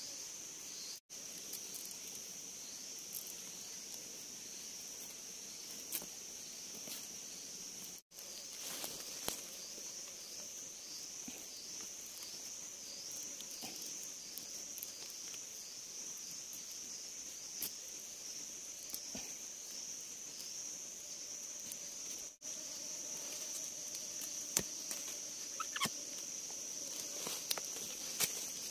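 Steady high-pitched drone of forest insects, with a quick repeating chirp through the first half. Scattered light clicks and rustles of hands working sticks and bark lashings.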